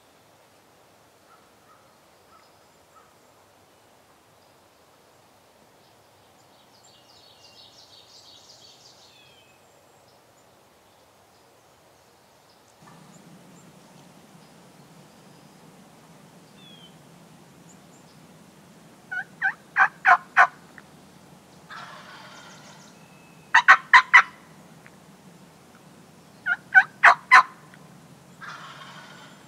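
Wild turkey gobbler gobbling loud and close, three gobbles a few seconds apart in the second half, each a quick rattling run of notes.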